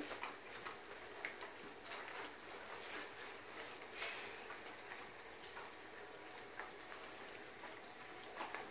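Several young puppies lapping and smacking at soft food in a shallow dish: a faint, busy patter of small wet clicks.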